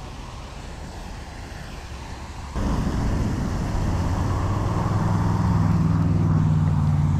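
A steady low engine hum comes in abruptly about two and a half seconds in and grows a little stronger toward the end, over faint outdoor background noise.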